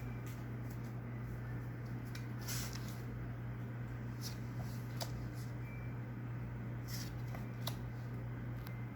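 Faint, irregular crinkles and clicks of a foil booster-pack wrapper being handled and worked open by hand, over a steady low hum.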